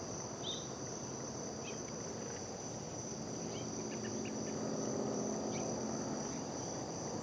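Crickets chirping in a steady, high-pitched chorus, with a faint low hum swelling and fading in the middle.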